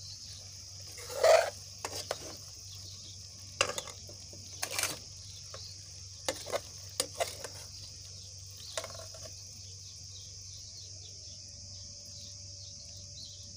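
A steel spoon scraping and clinking against a cooking pan while stirring cooked okra, in several separate strokes over the first nine seconds or so, the loudest about a second in. A steady high chirring of crickets runs underneath.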